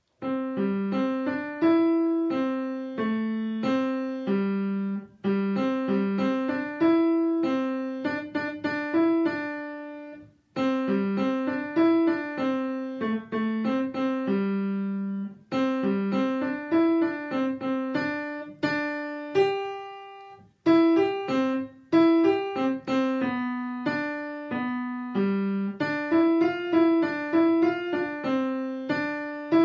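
Grand piano being played with both hands: a tune in phrases of about five seconds, with a brief break between phrases.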